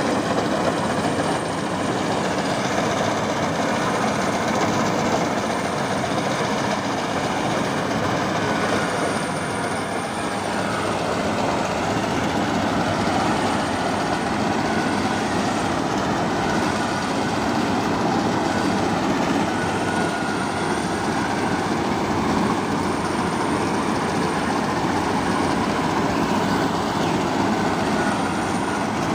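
Farm machinery such as a combine harvester or tractor running steadily, a dense, even mechanical noise with no pauses.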